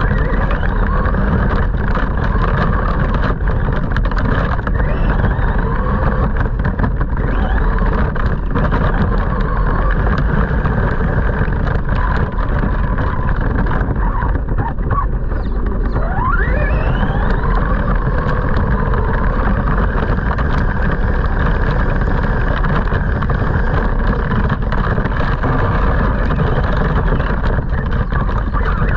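Radio-controlled monster truck driving over dry grass and dirt, heard from a camera mounted on it: a steady rumble of motor, gears and tyres. The motor's whine rises sharply in pitch once, a little past the middle.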